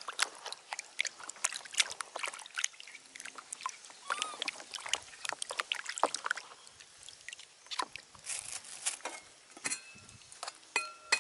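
Water splashing and sloshing in a plastic basin as hands wash chunks of squash in it, in many short irregular splashes. Near the end a metal pot gives a light ringing clink.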